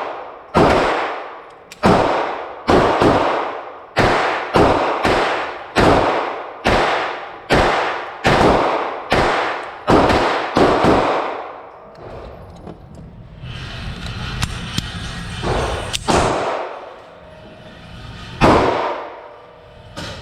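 Browning 1911-22 .22LR pistol firing a quick string of about sixteen shots, each echoing briefly, followed by a pause with a few small clicks and one more shot near the end.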